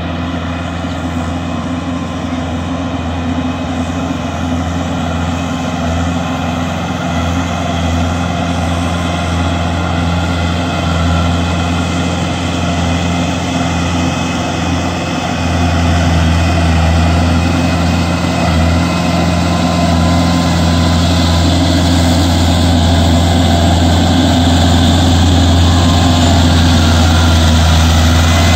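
Kubota L4508 tractor's diesel engine running steadily as it pulls a rotavator puddling a flooded paddy field, a constant low hum that grows gradually louder as the tractor comes closer.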